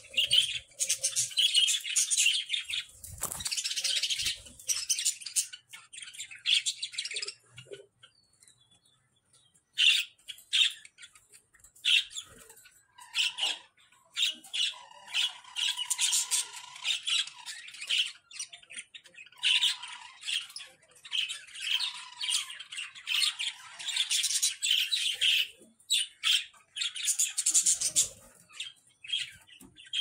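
A flock of budgerigars chattering, a dense, busy mix of chirps, warbles and squawks that falls briefly quiet about eight seconds in before starting up again.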